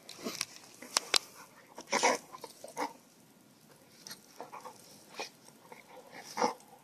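English bull terrier chewing and mouthing a knotted rope toy: irregular clicks and short noisy bursts, loudest about two seconds in and again near the end.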